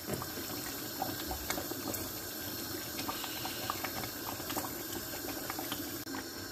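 Pot of tomato stew with meat bubbling on the stove: a steady simmering hiss scattered with small pops.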